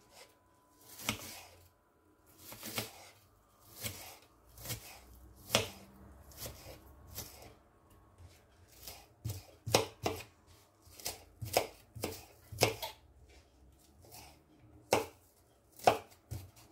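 Kitchen knife dicing a red onion on a plastic chopping board: a string of sharp knocks, spaced about half a second apart at first and quicker in the middle, with a short pause before a last few cuts.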